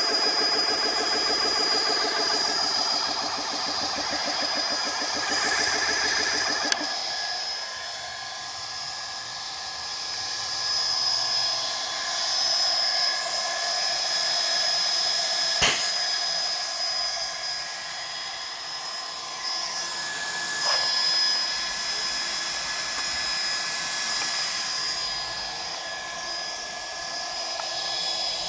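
GX-E-CS2 portable electric high-pressure air compressor running with a steady high whine. For about the first seven seconds a fast pulsing pumping beat runs under the whine, then drops away, leaving the whine alone, with one sharp click around the middle.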